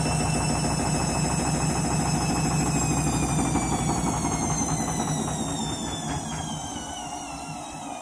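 Front-loading washing machine spinning: a low rumble of the drum under a high motor whine. From about five seconds in, the whine falls in pitch and the sound fades as the drum slows down.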